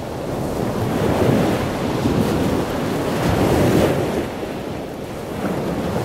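Wind buffeting the microphone over surf on a beach, a rough rumbling hiss that swells and eases every second or two.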